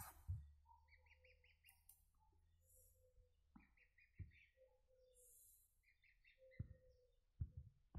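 Faint peeping of goslings: short runs of quick chirps, several runs in a row, with soft lower held calls between them. A few short dull knocks come through, one about a third of a second in and others around four and seven seconds in.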